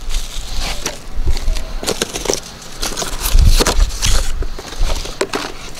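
Cardboard box and plastic packaging being handled: irregular rustling and crinkling as the contents are pulled out, loudest a little past the middle.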